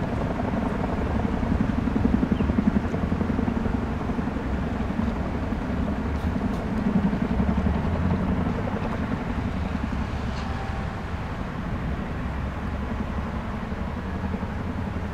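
Aircraft running on an airport apron: a steady low drone with a fast, even pulsing in it.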